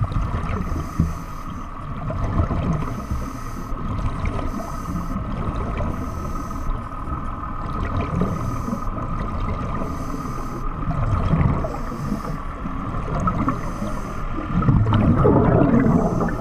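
Underwater sound of a surface-supplied diver breathing: exhaled air bubbling up in rumbling, gurgling rushes, with a steady hum carried through the water. The bubbling grows louder near the end.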